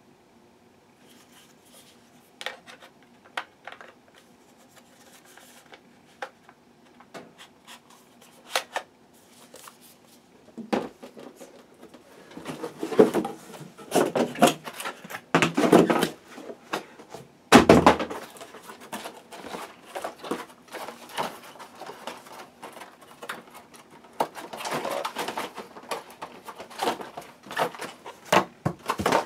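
Hands handling hard plastic parts and packaging: scattered clicks and taps, with bursts of rustling and clattering about halfway through and again near the end, and one louder knock a little past the middle.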